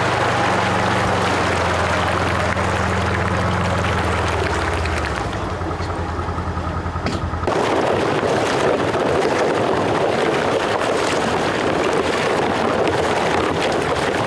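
A vehicle engine runs with a steady hum, then slows to a pulsing idle. About halfway through it cuts abruptly to water sloshing and splashing as a hunter wades through shallow flood water carrying strings of plastic duck decoys.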